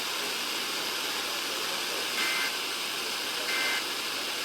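Steady weather-radio hiss, broken by two short two-tone digital bursts about a second apart, about two and three and a half seconds in: the Emergency Alert System end-of-message data code (SAME 'NNNN') that closes a warning broadcast.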